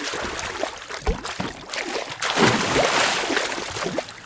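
Water splashing and sloshing in short irregular bursts, with a louder rushing hiss through the second half that fades near the end.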